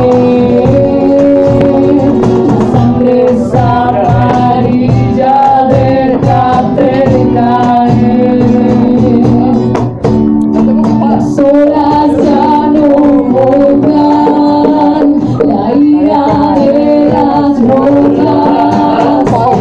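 Live acoustic band music: a woman sings into a microphone over acoustic guitar. It is recorded loud and close.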